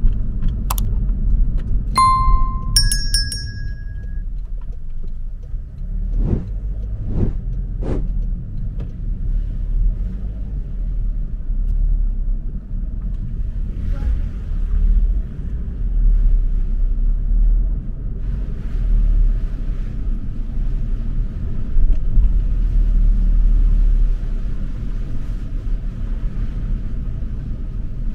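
Car driving on the road: a steady low rumble of engine and tyres. A short metallic ring sounds about two seconds in, and three sharp knocks come between about six and eight seconds in.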